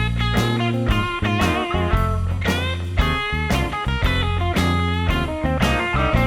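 Background music: a guitar-led instrumental track with a steady beat and a strong bass line.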